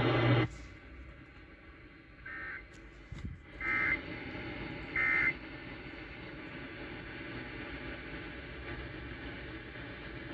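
Three short bursts of Emergency Alert System end-of-message data tones, each about half a second long and a little over a second apart, signalling the end of the alert. A steady radio hiss runs underneath and carries on after them.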